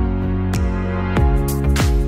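Background music: held chords over a steady drum beat.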